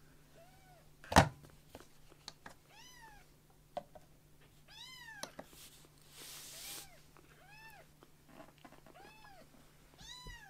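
Very young kitten mewing repeatedly: about eight short, high-pitched mews, each rising and then falling in pitch. A sharp knock about a second in is the loudest sound.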